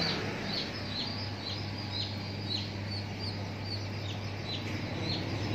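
Many young poultry chicks peeping in rapid, short, falling chirps, over a steady low hum.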